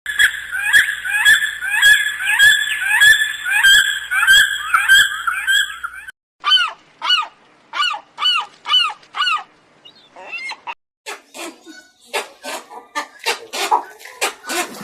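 Bird calls in three separate runs with sudden cuts between them. First comes a fast, evenly repeated series of honking calls for about six seconds. Then come six separate calls, each rising and falling in pitch, and near the end a rapid run of short, sharp calls.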